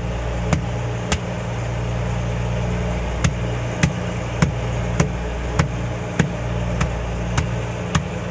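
An engine running with a steady low hum, with sharp knocks about every 0.6 s over it that pause for about two seconds near the start.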